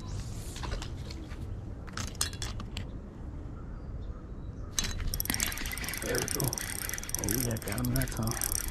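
Baitcasting reel being cranked, its gears giving a fast, even ratchet-like clicking that starts about five seconds in, after a few sharp clicks around two seconds in.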